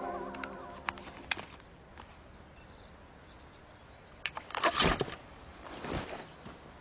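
Kea at a plastic-cylinder puzzle apparatus: a few sharp taps and clicks, then a louder burst of scuffling and knocking about five seconds in.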